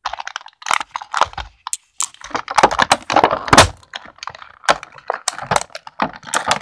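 Clear plastic packaging crackling and crinkling as it is handled and pulled open by hand, in irregular bursts that are densest in the middle.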